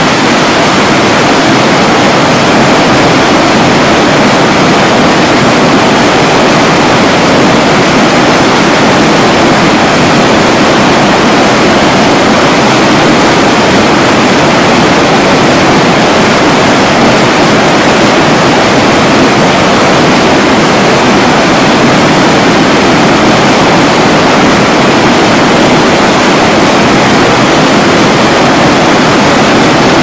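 Loud, steady rush of fast-flowing water, an even roar with no breaks.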